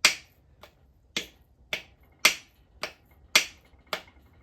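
A hammer tapping a part into the engine block to seat it: short, sharp taps about twice a second, alternating louder and softer.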